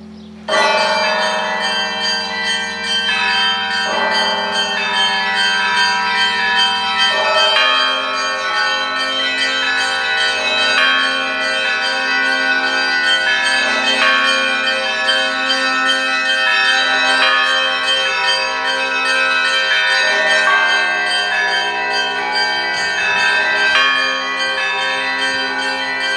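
Russian Orthodox monastery bells being rung together. Many small bells ring in a rapid, dense pattern, and a heavier bell sounds about every three seconds. The full ringing bursts in about half a second in, after the hum of a large bell dies away.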